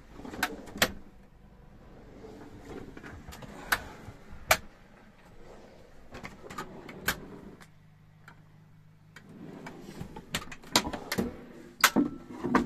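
Hymer motorhome kitchen drawers being pulled open and pushed shut on their runners: sliding noise broken by about a dozen sharp knocks and clicks as the drawers hit their stops.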